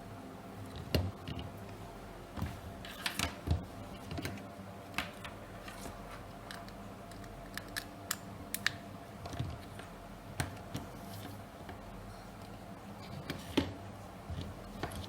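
Irregular clicks and taps, singly and in small clusters, over a faint steady hum.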